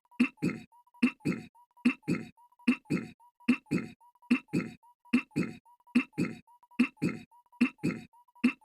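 Goofy's cartoon throat-clearing voice clip looped over and over: a short gruff grunt followed by a longer one, the pair repeating a little more than once a second, with a faint steady high tone underneath.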